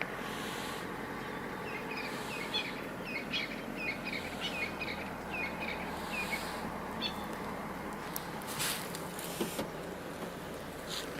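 A bird chirping in a quick run of short high notes over steady outdoor background noise, with a few brief rustling noises near the end.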